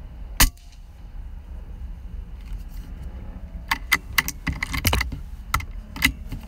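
A single sharp air-rifle shot about half a second in, the loudest sound. From about three and a half seconds on comes a quick run of metallic clicks and clacks, the sound of the rifle being handled.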